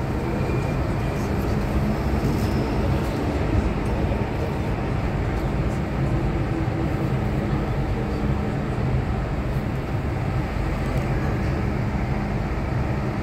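Inside the cabin of an MTR M-Train electric metro train running at speed through a tunnel: a steady, even rumble of wheels and running gear with a constant low hum.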